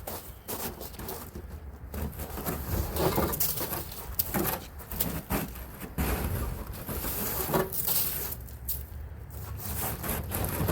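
Irregular crunching and scraping in wet, slushy snow as snow is cleared by hand and walked through.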